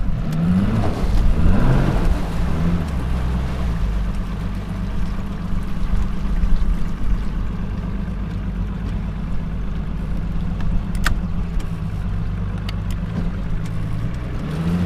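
Bass boat's outboard motor running at low speed while the boat is manoeuvred in against a wall, its pitch rising briefly a few times in the first two seconds. A single sharp click about eleven seconds in.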